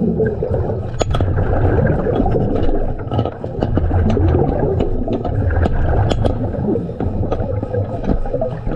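Underwater rush and gurgle of a diver's breathing and exhaust bubbles, swelling and easing every few seconds, with scattered sharp clicks and scrapes as gloved hands handle a bolted 6-inch pipe flange.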